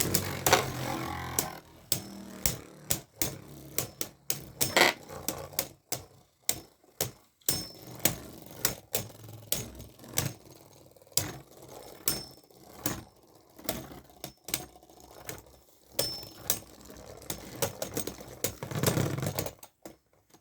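Beyblade Burst spinning tops battling in a plastic stadium: a long run of sharp, irregular plastic clacks as the tops collide, with a scraping spin between hits, cutting off near the end.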